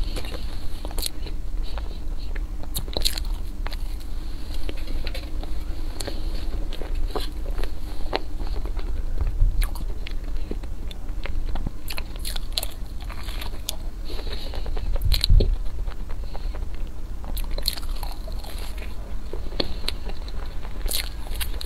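Close-miked eating: repeated bites and chewing of green cakes taken from a spoon, with scattered crisp crunches and mouth clicks over a steady low hum.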